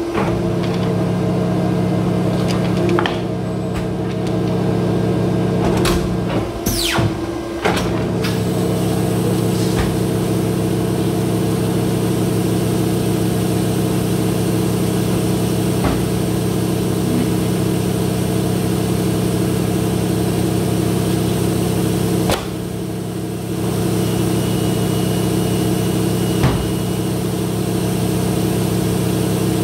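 Polar 115X guillotine paper cutter running with a steady machine hum. Knocks and clatters come in the first eight seconds as a paper stack is pushed into place on the steel table. The hum drops suddenly and changes about three quarters of the way through, and a thin steady tone follows briefly.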